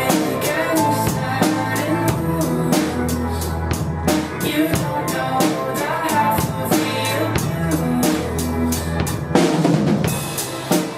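Drum kit played along to a recorded backing track, with steady kick, snare and cymbal strokes over a bass line and keyboard chords. A busier fill with cymbals swells up shortly before the end.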